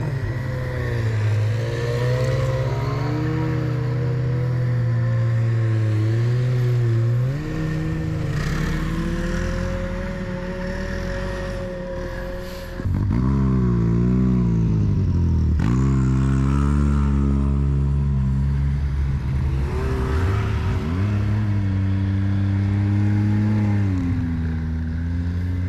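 Snowmobile engines running along a trail, the pitch rising and falling with the throttle. About halfway through, the engine note drops sharply and climbs back up twice.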